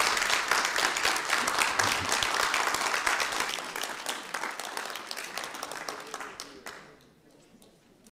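Audience applauding, many hands clapping at once; the applause thins and fades over the second half and cuts off shortly before the end.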